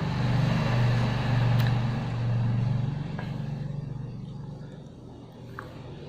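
A motor vehicle engine going by, a steady low hum that is loudest over the first three seconds and then fades away.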